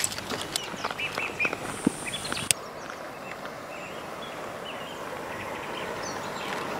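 Scuffs and clicks of a large firecracker being handled and set into soil during the first couple of seconds, ending with one sharp click, with small birds chirping in the background. After that comes a steady hiss that slowly grows louder.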